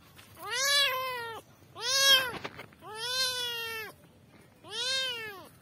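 A kitten meowing four times, each meow about half a second to a second long and rising then falling in pitch.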